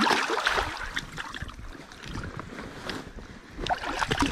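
A large fish thrashing in a landing net in shallow river water: a loud splash in the first second, then smaller splashes and sloshing as it is handled.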